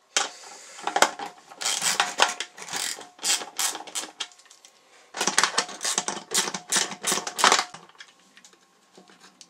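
7 mm socket ratchet clicking in quick runs as it backs out small screws: two spells of rapid clicking, with a short pause about halfway.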